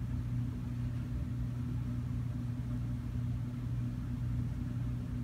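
Steady low hum over a rumble, unchanging: the room's background noise.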